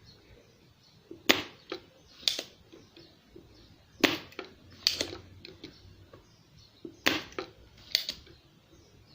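Spring-loaded desoldering pump snapping and clicking as it is cocked and fired to suck molten solder off capacitor leads on a circuit board. Sharp snaps come in three pairs, each pair about a second apart.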